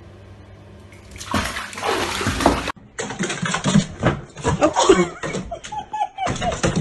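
Water splashing in a bathtub as a kitten tumbles in, lasting about a second and a half and cutting off sharply. It is followed by a jumble of thumps and short pitched cries.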